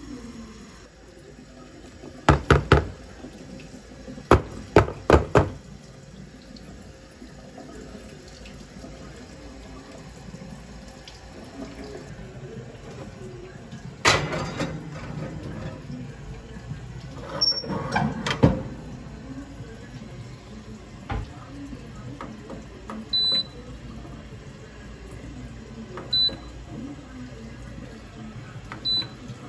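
A cluster of three sharp knocks, then four more, then further clatters, followed by three short, high beeps a few seconds apart from a countertop convection oven's control panel as its buttons are pressed.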